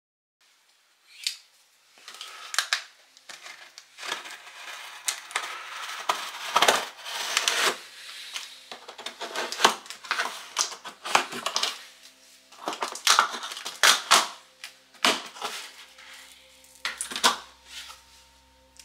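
Cardboard shipping box being handled and its packing tape slit open with a knife: irregular scrapes, taps and crackles of cardboard.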